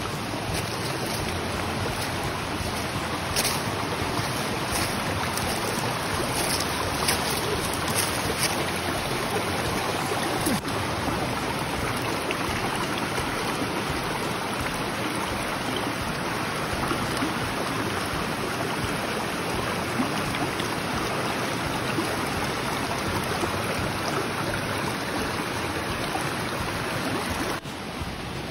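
Steady rush of flowing stream water, with a few faint crackles in the first several seconds; the rush drops a little just before the end.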